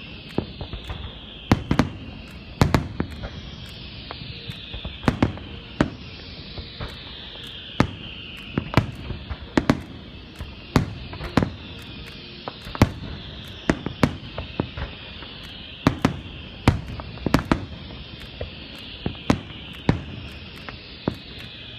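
Fireworks display: shells bursting in irregular booms and cracks, sometimes several in quick succession, others spaced a second or more apart.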